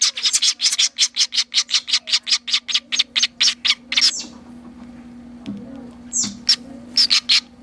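Nestling chimney swifts chattering in a rapid run of short, high calls, about seven or eight a second, that stops about four seconds in, followed by a few scattered single calls.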